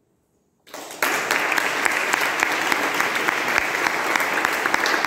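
Audience applauding: after a brief silence, dense clapping breaks out about a second in and carries on steadily.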